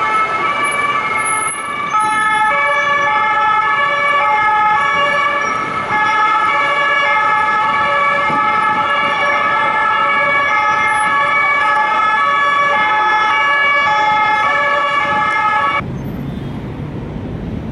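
French police two-tone sirens, several sounding at once, each stepping back and forth between two pitches. About 16 s in they cut off abruptly, leaving a low city traffic rumble.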